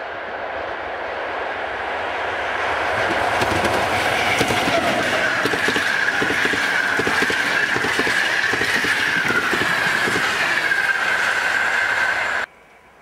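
Passenger train hauled by a PKP EU07 electric locomotive passing close by. The noise builds as it approaches, then the carriage wheels clatter rhythmically over the rail joints, with a steady high whine above. The sound cuts off abruptly near the end.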